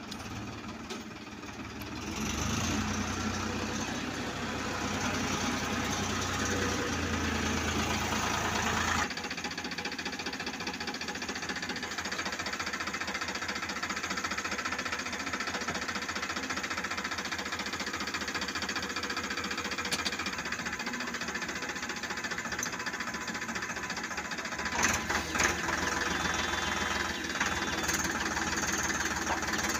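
Farm tractor's diesel engine running steadily near idle; the deep rumble drops away about nine seconds in, and a few sharp clacks come near the end.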